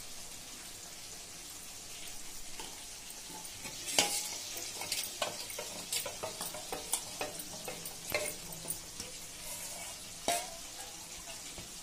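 Steel ladle stirring a thin sauce in a stainless steel bowl, clinking and scraping against the metal, starting with a sharp knock about four seconds in and going on in quick irregular clicks. A steady sizzle of frying runs underneath.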